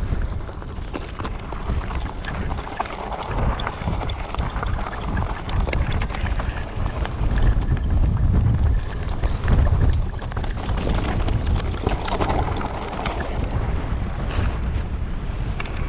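Wind buffeting a helmet camera's microphone as a mountain bike is ridden over loose dirt track, a steady low rumble that swells louder a couple of times, with scattered clicks and rattles from the tyres and bike.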